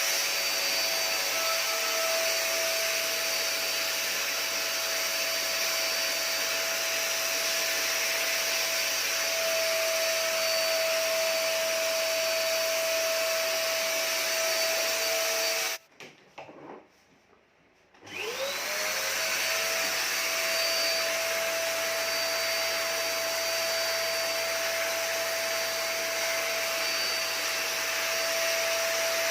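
Olsenmark vacuum cleaner running with a steady rush of air and a high motor whine. It is switched off about 16 seconds in, then switched back on about two seconds later, the whine rising as the motor spins up before settling.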